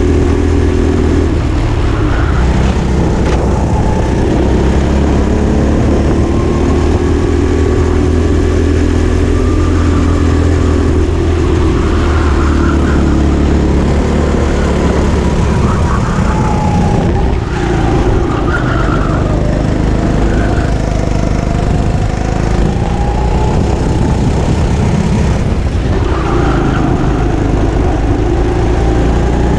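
Go-kart engine running hard through a race lap, its pitch rising and falling as the driver accelerates and brakes for the corners, over a steady low engine drone.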